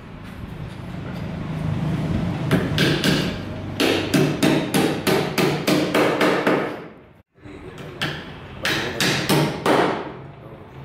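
Hammer driving nails into plywood shuttering, in quick runs of sharp strikes about three to four a second, broken by a brief gap a little past the middle.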